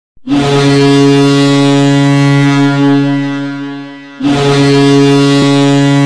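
Boston Bruins arena goal horn blowing two long, loud blasts. The first lasts about three seconds and fades away. The second starts about four seconds in.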